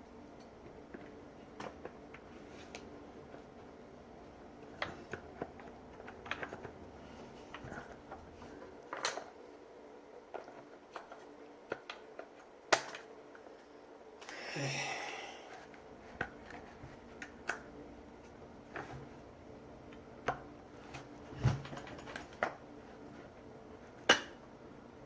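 Irregular small clicks and taps of metal and plastic parts being handled and fitted as a reciprocating saw is put back together, with a brief rustle about halfway through.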